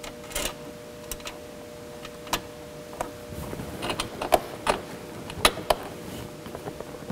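Irregular light clicks and taps of a screw being handled and started by hand into the plastic front grill of a Can-Am Spyder, over a faint steady hum.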